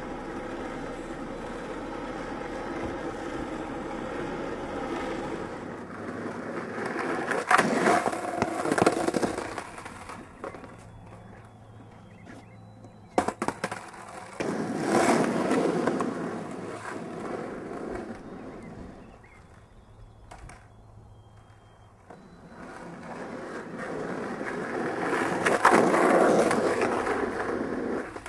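Skateboard wheels rolling on asphalt, the rolling noise swelling three times as the rider comes past. Sharp clacks of the board hitting the pavement as tricks are popped and landed, one standing out about 13 seconds in.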